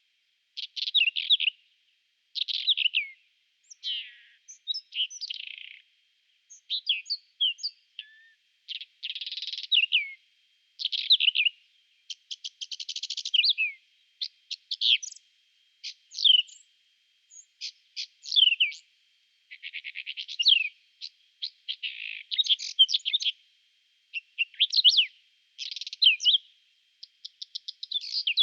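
Whinchat singing short, varied phrases of scratchy notes, fast rattles and down-slurred whistles, one phrase every second or two with brief silent gaps between.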